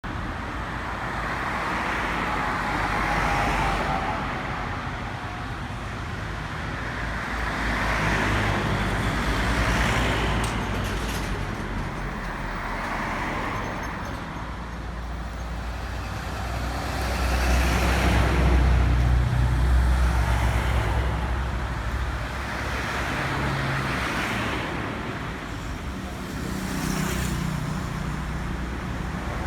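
Road traffic: a steady rumble and tyre noise of motor vehicles, swelling and fading every few seconds as vehicles pass.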